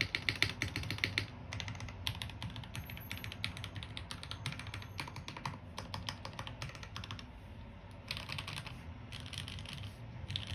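Typing on a custom mechanical keyboard with lubed Gateron Black Ink linear switches and GMK keycaps on a 5mm polycarbonate plate: fast runs of soft keystrokes with brief pauses between bursts. The bottom-out is soft rather than harsh.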